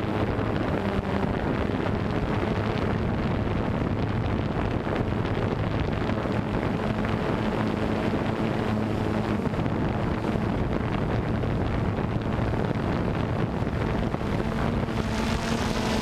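Quadcopter drone's motors and propellers humming steadily, with wind noise on the microphone.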